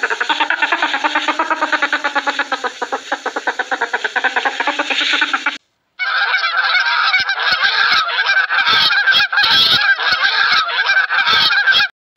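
A rapid, pulsing animal call, then after a short break about halfway through, a flock of greylag geese honking with many calls overlapping.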